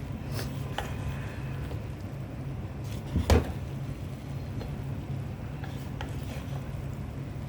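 Kitchen utensils clicking and knocking against a pan or dish, with one louder knock about three seconds in, over a steady low hum.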